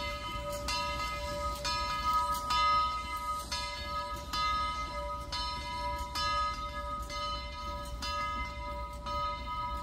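Southern 4501's locomotive bell ringing steadily, about two strokes a second, as the train departs, over a low steady rumble.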